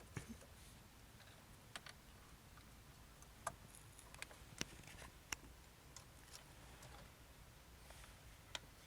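Near silence with a handful of sharp, scattered clicks and taps from small parts being handled while the quick-release negative tab and horn ring are fitted.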